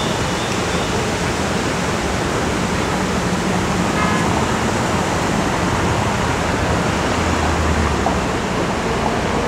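Steady, loud rushing noise of a city street with cars passing, and no clear single source. A low rumble swells about three-quarters of the way through.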